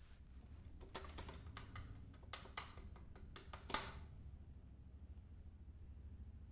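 A cat's claws scratching and clicking on a concrete wall: a quick, irregular run of about a dozen sharp scrapes over three seconds, stopping about four seconds in, after which only a low steady rumble remains.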